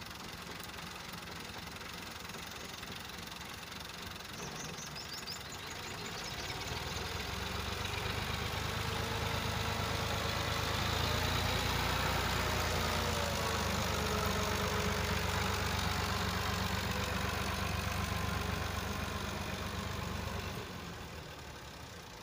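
Millat MF 260 Turbo tractor's three-cylinder diesel engine running as it drives past pulling a trolley. It grows louder from about six seconds in and fades near the end.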